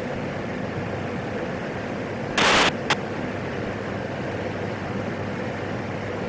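Steady hiss and low drone of a PAC 750 turboprop in the climb, heard through the aircraft's radio and intercom audio feed. A brief burst of static comes about two and a half seconds in, with a short click just after, like a radio squelch break.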